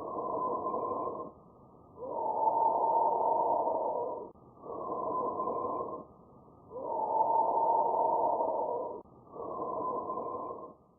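Bronchial breath sounds over the trachea: noisy breathing in which a shorter, quieter inhalation is followed, after a brief pause, by a longer, louder exhalation. Two full breaths and a third inhalation are heard.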